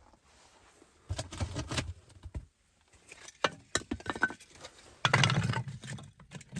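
Dry split kindling sticks clattering and knocking together as they are handled, in bursts about a second in and around three and a half seconds. The loudest clatter comes about five seconds in, as the sticks are set down on the metal top of a masonry stove.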